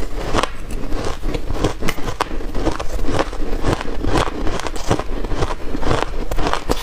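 Shaved ice crunching as it is chewed, picked up close by a clip-on microphone: a dense, continuous run of crisp crackles. A metal spoon scrapes and scoops through shaved ice in a stainless steel blender jug.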